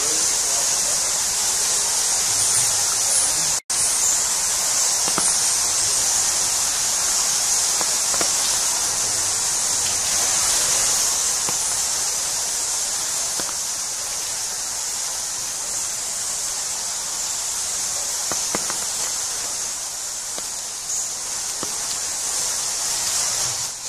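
Steady outdoor night ambience: an even, high-pitched hiss with faint scattered crackles. The sound cuts out for an instant about four seconds in.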